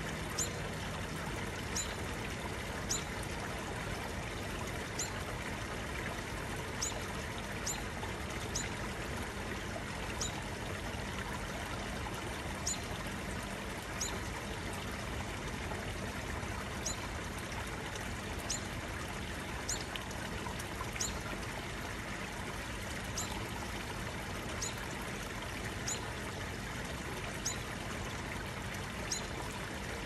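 Garden waterfall pouring: a steady rush of falling water, with high, clear plinks of single drops every second or two.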